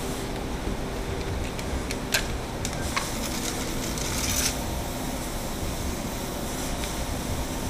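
Plastic lid of a tub of peanut butter being pried off, with two sharp clicks about two and three seconds in, then a short rustling scrape as it is handled and set down, over a steady low hum.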